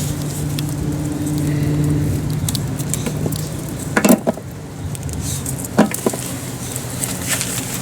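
Light rain pattering, with two sharper knocks about four and six seconds in over a steady low hum.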